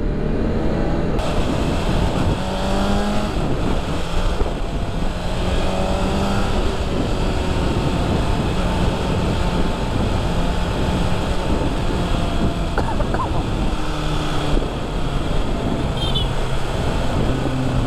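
BMW S1000RR's inline-four engine running through its slip-on exhaust, its pitch climbing several times as it revs up, under a steady rushing noise.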